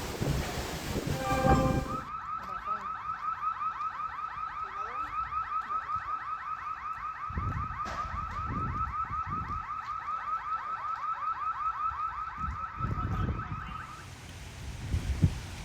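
Car alarm sounding a rapid, evenly repeating electronic chirp. It starts about two seconds in and stops near the end, with gusts of wind buffeting the microphone.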